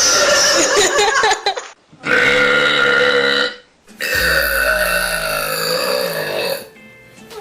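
A girl burping: three long, pitched burps one after another, the last one the longest at over two seconds.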